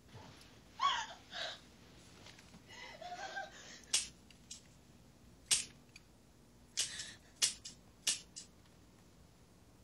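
A girl crying softly: short whimpering sobs with a falling pitch, followed by several short, sharp sounds spaced about a second apart.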